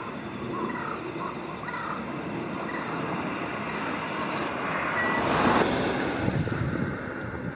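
Jungle crows and carrion crows calling to one another in a gathered flock, short caws scattered through the first half. A vehicle passes, a rushing swell that is loudest a little past halfway and then fades.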